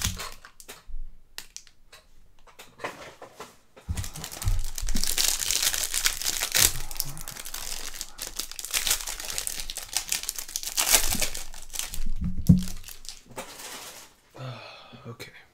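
A trading card pack's plastic wrapper being torn open and crinkled as the cards are handled. The rustling starts about four seconds in, runs steadily for several seconds, and dies away near the end.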